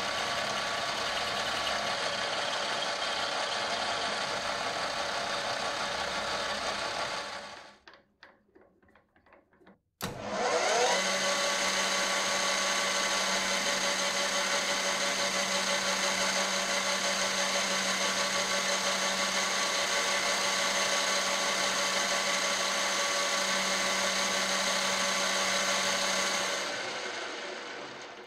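Metal lathe running steadily, with a twist drill boring into the spinning metal bar. The lathe stops about seven seconds in; after a click it starts again with a rising whine, runs steadily with a low hum, and winds down near the end.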